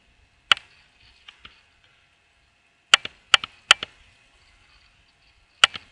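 Computer mouse buttons clicking, sharp single clicks, as a PIN is entered on an on-screen keypad. One click comes about half a second in, two faint ones follow, then a quick run of four around the middle, and one more near the end.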